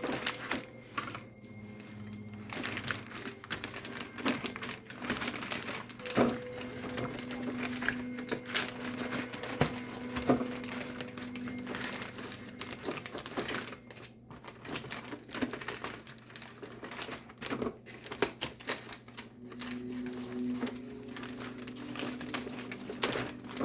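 Plastic toy packaging being handled and worked at: irregular small clicks, taps and crinkling as a spoiler piece is pried loose from its plastic tray.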